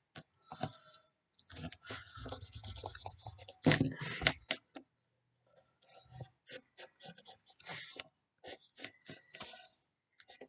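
Drawing strokes scratching on paper in short, irregular bursts, with a louder bump about four seconds in.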